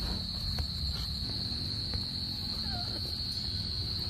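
Crickets trilling in one continuous high-pitched drone, over a steady low rumble of camera handling.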